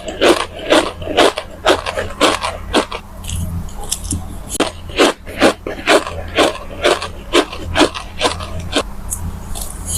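Crunchy starch granules being bitten and chewed close to the microphone: an uneven run of sharp crunches, about two or three a second.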